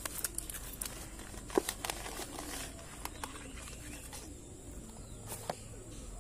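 Rustling and small clicks of a Boya M1 lavalier microphone being unpacked and its cable handled. The sounds are busiest in the first few seconds, with a louder click about a second and a half in, then quieter handling.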